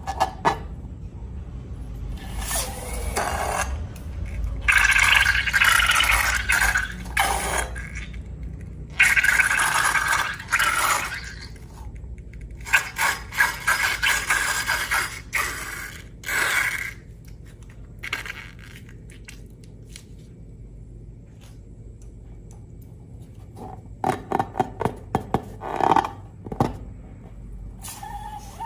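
Slime being scraped and worked in a container, in several bursts of a few seconds each, with a quick run of short clicks near the end.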